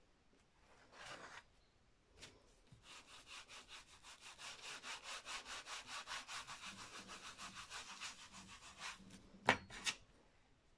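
A baren rubbing over the back of printing paper laid on an inked lino block, burnishing the print in quick, even back-and-forth strokes of about five a second. A short paper rustle comes about a second in. Near the end there are two sharp knocks as the baren is set down on the table.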